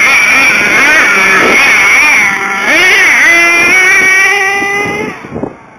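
HPI Savage nitro RC monster truck's small two-stroke glow engine running at high revs, its pitch dipping and climbing, then holding high before the sound drops off sharply near the end.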